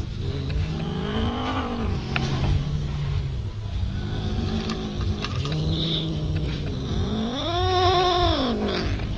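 A cat meowing over and over, drawn-out calls that rise and fall in pitch, the loudest and highest one near the end, over a steady low rumble.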